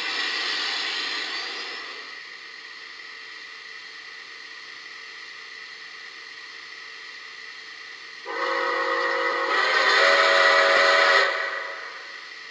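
Sound system of a Lionel Legacy Scale Polar Express Berkshire O-gauge steam locomotive going through its start-up: a loud hiss of steam that settles within about two seconds into a steady, quieter hiss, then about eight seconds in a steam whistle sounding several notes at once blows for about three seconds, swelling partway through.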